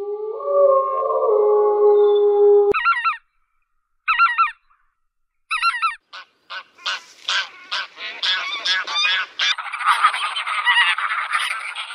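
A grey wolf howls, one long steady note that cuts off abruptly under three seconds in. Then Canada geese honk: three single honks a second or so apart, followed by many geese honking over one another, the chorus thickening near the end as a flock of domestic geese joins in.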